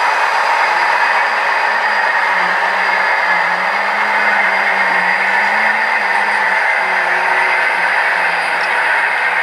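Model freight train of covered hopper cars rolling steadily past on the layout's track, a continuous rumble of wheels on rail with a faint wavering hum underneath.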